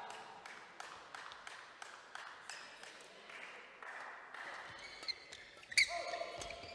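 Badminton play on a hard indoor court: a scatter of sharp clicks from rackets striking shuttlecocks, and short squeaks of court shoes on the floor. The loudest squeak and strike come near the end as the rally gets going.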